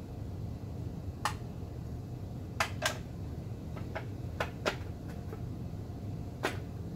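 Scattered sharp clicks and taps, about nine in all and some in quick pairs, as parts are handled during hand work on a small-block Chevy's HEI distributor, over a steady low hum.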